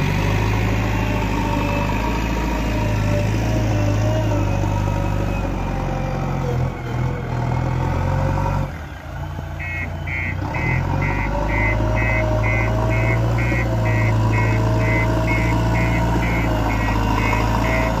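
JCB 3DX backhoe loader's diesel engine running steadily as the machine drives and works soil with its front bucket. About halfway through, a high beeping alarm starts and keeps going, about two beeps a second.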